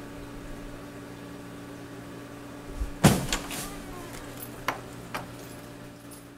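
Wooden door swinging shut with a loud bang about three seconds in, followed by two sharp clicks, over a steady low room hum.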